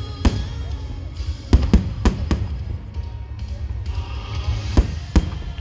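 Aerial fireworks bursting in sharp bangs, about seven in all: one near the start, a quick cluster of four around the middle, and two near the end. Music from loudspeakers plays steadily underneath.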